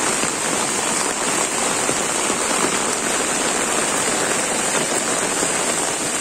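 Heavy rain pouring steadily onto a muddy path, leaves and walls, an even hiss of drops.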